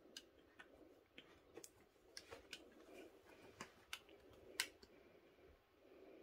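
Scattered light clicks and taps from kittens batting at and pouncing on a furry toy mouse dangled on a string, the sharpest a little past halfway through, over faint room tone.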